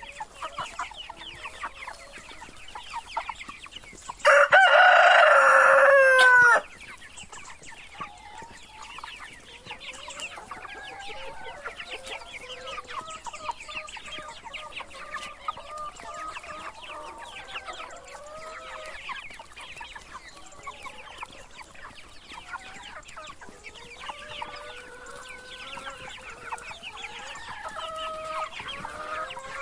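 A flock of chickens clucking continuously, with a rooster crowing once, loud and about two seconds long, about four seconds in.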